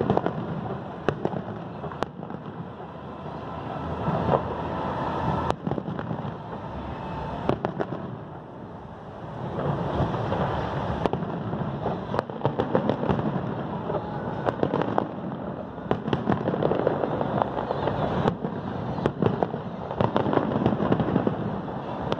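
Fireworks display: a dense barrage of sharp bangs and crackles over a continuous rumble. It eases briefly about eight seconds in, then grows louder and busier through the second half.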